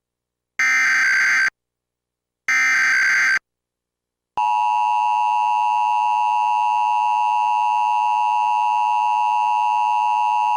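Emergency Alert System test signal: two buzzing digital data bursts of about a second each, a second apart, which are the SAME header that encodes the alert. From about four seconds in comes the steady two-tone EAS attention signal, held unchanged.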